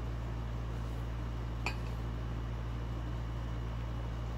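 Steady low hum of a running window air conditioner. A single light clink, like a utensil or cup touching a dish, comes a little over a second and a half in.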